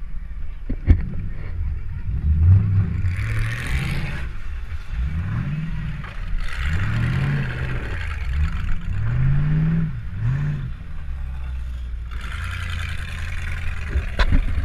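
Demolition derby car's engine revving up and down over and over, heard from inside the car, with bursts of rushing noise and a couple of sharp knocks, one about a second in and one near the end.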